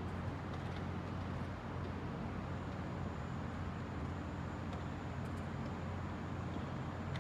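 Steady low hum of the room's background noise, with a few faint clicks of chess pieces being set down and the chess clock being pressed.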